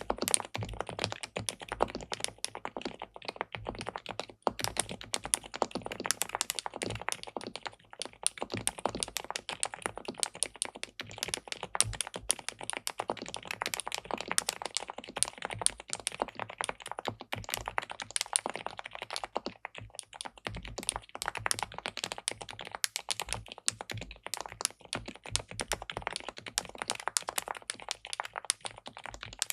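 Typing on an SPM Mongdol87 (PL87W) tenkeyless mechanical keyboard fitted with linear switches on a polycarbonate plate: a continuous run of quick, irregular keystroke clicks.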